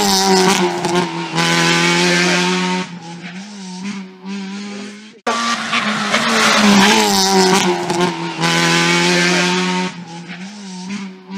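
Rally car engine held at high revs with tyres squealing. The same few seconds of sound play twice: it cuts off abruptly about five seconds in and starts over.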